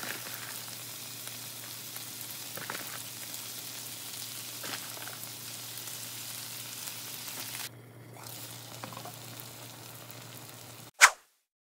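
Corn and shredded cheese sizzling steadily in a nonstick frying pan, a constant hiss with a few faint ticks that drops a little in level partway through. Near the end a single sharp, loud hit cuts it off.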